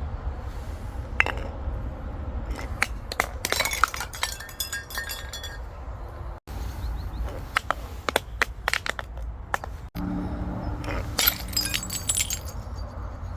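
Glass bottles cracking and crunching as they are crushed: three bursts of sharp cracks and clinks with glassy ringing, each cut off abruptly, over a steady low rumble.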